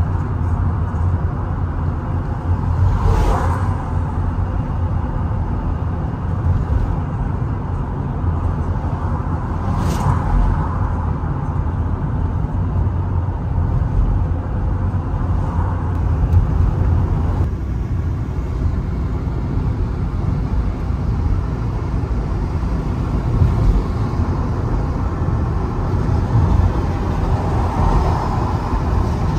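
Steady low rumble of a car's engine and tyres on the road while driving, with two brief whooshes about three and ten seconds in.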